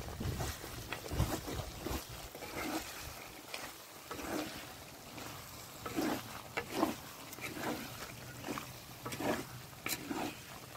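Wet squelching of marinated chicken pieces being mixed and squeezed by hand with masala in a clay bowl: short, irregular squishes.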